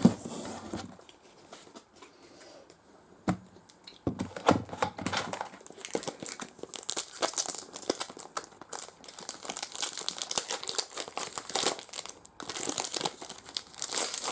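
Foil trading-card pack wrappers crinkling and tearing as packs are torn open and handled. A couple of sharp clicks come in the first few seconds, then steady crinkling from about four seconds in.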